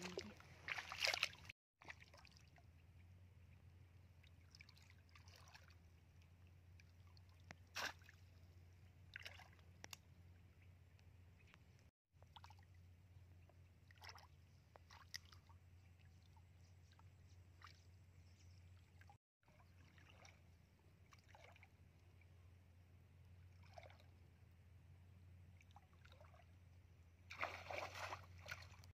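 Faint, scattered sloshes and splashes of shallow muddy water being waded through and worked with a woven plunge basket. The loudest splashing comes near the end, as feet stride through the water.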